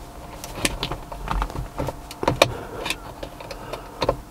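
Sharp plastic clicks and scrapes of sPod rocker switch caps being pried off with a screwdriver and handled, several irregularly spaced clicks.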